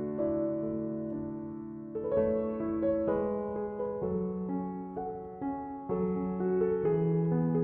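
Background music: a slow, gentle piano piece.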